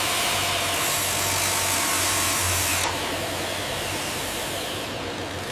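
A power tool running steadily over a low hum, its hiss easing slightly about three seconds in.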